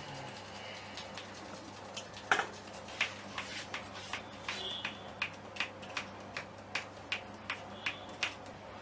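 Sharp clicks: one loud click about two seconds in, then a steady run of lighter clicks at about two to three a second.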